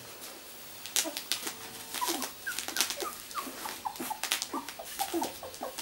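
Two-week-old miniature labradoodle puppies squeaking and whimpering in many short high calls while they jostle to nurse, with crinkling of the plastic sheet under them.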